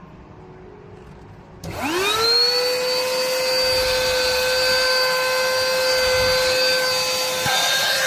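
HAN RIVER HRXCQ03WT cordless vacuum cleaner switched on about a second and a half in: its motor whine rises quickly and settles into a steady high-pitched run.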